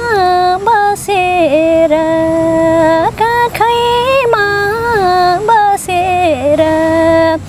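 A woman singing solo in Nepali, holding long notes that slide up and down between pitches, with short breaths between phrases.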